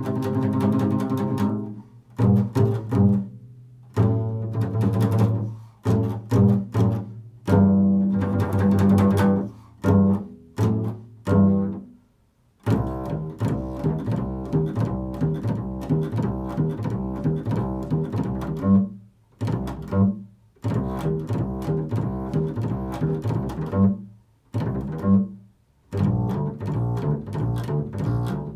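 Upright double bass played pizzicato in an improvised solo: plucked notes that ring on, with short pauses between phrases, turning about halfway through into a busier run of quicker notes.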